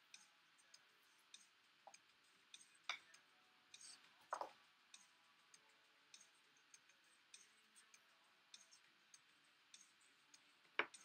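Near silence with faint, irregular small clicks and ticks, a soft knock about four seconds in and a sharper click near the end.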